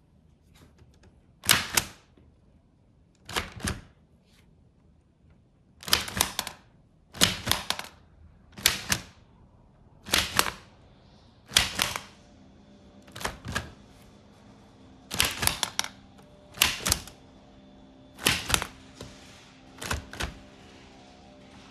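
Keys of a ROKR wooden model typewriter being struck one at a time. There are about a dozen slow, uneven clacks, some as quick double strokes, with pauses of one to two seconds between them.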